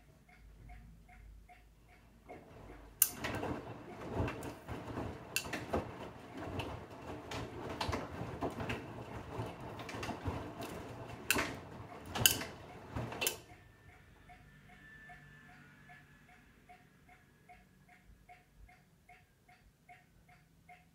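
Bosch Serie 8 front-loading washing machine tumbling a load in water for about eleven seconds, with a wet churning noise and sharp knocks and clicks of the laundry falling in the drum, then stopping. Before and after the tumble a light, even ticking runs at about three ticks a second.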